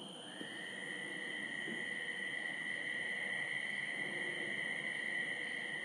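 Frogs calling in the distance: a steady high-pitched trill, joined just after the start by a second, slightly lower continuous trill that holds steady until the end.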